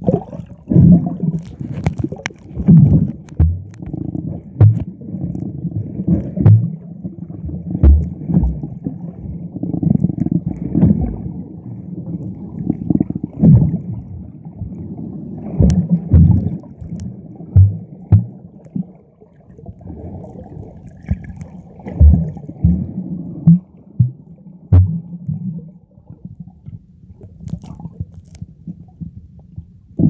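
Muffled underwater churning and gurgling of sea water heard through a submerged camera, with irregular low thumps every second or two.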